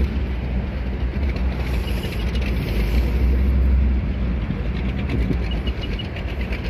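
Low, steady engine rumble, heaviest in the middle seconds.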